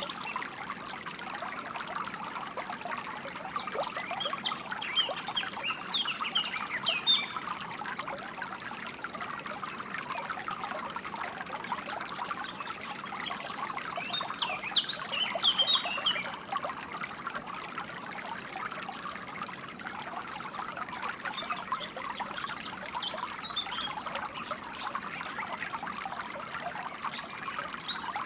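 Steady trickling and splashing of a small stream, with birds chirping in short bursts of high notes over it, in clusters several seconds apart.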